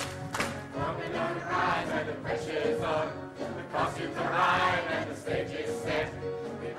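Music with a group of voices singing together over the accompaniment.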